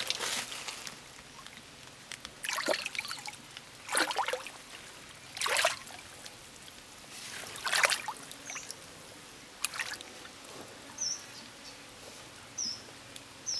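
Hands splashing and sloshing in shallow muddy water while feeling for catfish in the mud, about seven separate splashes a second or two apart. Faint short high chirps come in near the end.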